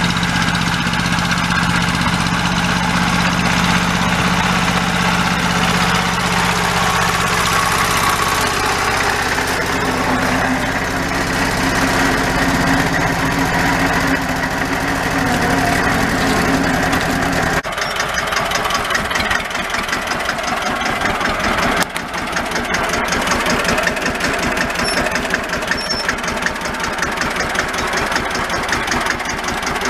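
1964 Deutz D15's air-cooled single-cylinder diesel engine running steadily while pulling a plough. After a sudden cut about two-thirds of the way in, the engine runs more slowly, each firing stroke heard as a separate, even beat.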